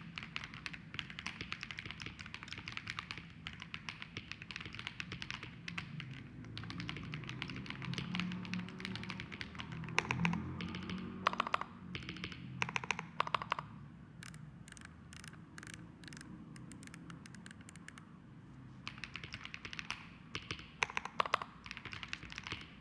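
Typing on a KiiBOOM Phantom 81 V2 mechanical keyboard fitted with Womier jelly keycaps: a steady stream of keystroke clacks, with louder, quicker runs of keys a little under halfway through and again later on.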